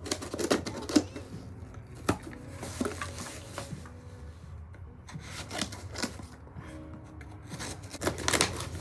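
A package being worked open by hand from the side: irregular rubbing and scraping with scattered clicks, the loudest about a second in and near the end.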